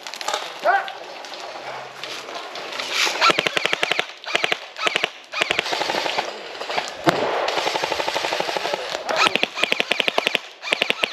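Airsoft rifles firing several rapid full-auto bursts, the longest lasting about two seconds just past the middle.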